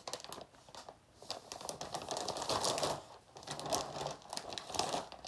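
Plastic snack packaging crinkling and rustling in the hands as a small wrapped pack is handled from a large bag of coconut rolls: spells of quick dense crackles with short pauses between them.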